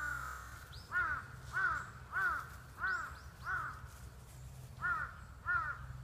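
A crow cawing: seven short harsh caws, a quick series of five followed by two more near the end.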